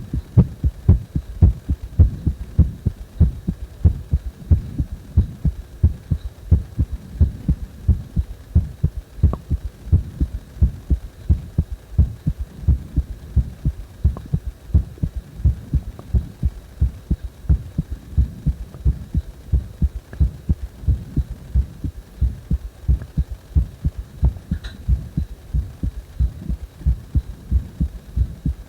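Human heartbeat: a steady, even run of low lub-dub thumps, with breath sounds strong underneath.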